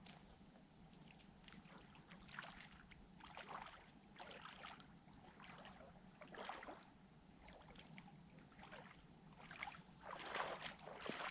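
Faint irregular splashing and sloshing of shallow water at a pebbly lake edge, from bare feet stepping in the shallows. The splashes come a few seconds apart and crowd together, louder, near the end.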